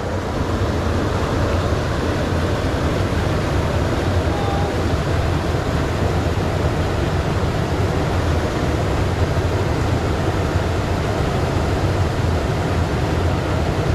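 Steady rush of flowing river water, with a low rumble underneath.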